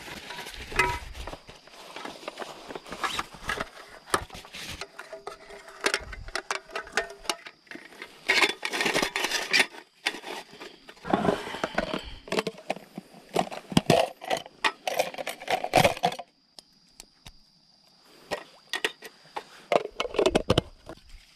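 Camping gear being handled and set up: rustling of a bag and fabric, clicks, clatters and scrapes as an aluminium roll-top table is unfolded and set down on gravel. The noises come in many short, irregular bursts, with a brief quieter lull about two-thirds of the way through.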